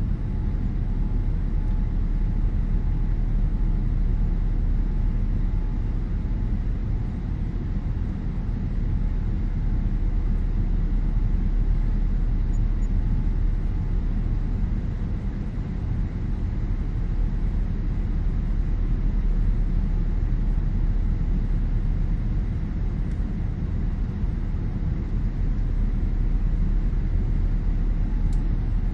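Steady low rumble of engine and airflow noise heard inside the cabin of a Boeing 787-9 airliner in flight after takeoff. A faint whine fades out within the first several seconds.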